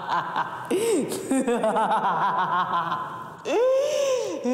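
A woman laughing hard in a rapid run of short ha-ha sounds, then a long drawn-out high squeal that rises and falls about three and a half seconds in.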